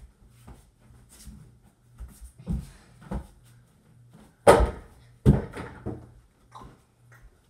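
A mini basketball knocking against an over-the-door backboard and door: a few softer thuds, then the loudest knock about four and a half seconds in, followed by more thuds as the ball drops and bounces. A low steady hum runs underneath.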